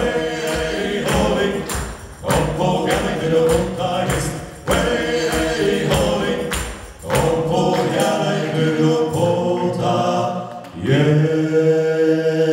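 Small male vocal group singing a Polish sea shanty in harmony, accompanied by acoustic guitar, with a steady rhythmic beat. About eleven seconds in, the strokes stop and the voices hold a long final chord.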